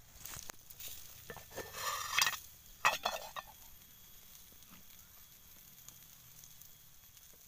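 Aluminium cooking-pot lid being slid aside on the pot, scraping and clanking against the rim, with two sharp clanks about two to three seconds in. After that only the faint sizzle of the wood fire grilling meat skewers.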